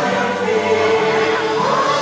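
Show music played through an arena's sound system: a choir singing long held notes over the backing, one line sliding upward near the end.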